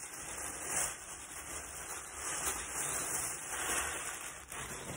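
Packaging wrap crinkling and rustling as hands unseal it and pull it open, swelling and easing without a break.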